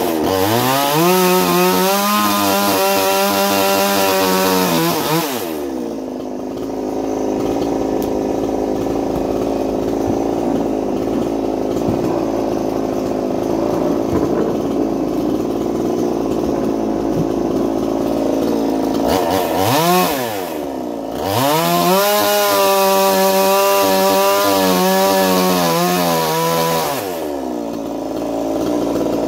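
Ported Chinese 45cc two-stroke chainsaw cutting wood. It is held at full throttle through a cut for about five seconds, then drops back to idle. After a quick blip of the throttle it runs a second full-throttle cut of about six seconds and settles to idle again.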